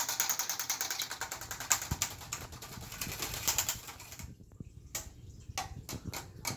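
Plastic drinking straws joined into one long straw, crackling and clicking rapidly as they are bent and handled. The clicking thins out after about four seconds into scattered single clicks.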